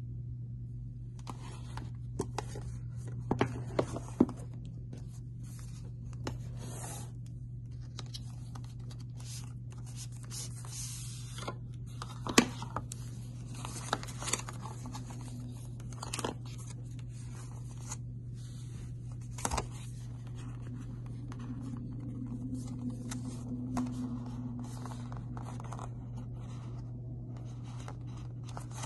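Paper and cardboard packaging of an Apple Watch box being unpacked: rustling, sliding and the peeling of a paper sleeve, with scattered sharp taps and clicks, the loudest about twelve seconds in. A steady low hum sits underneath.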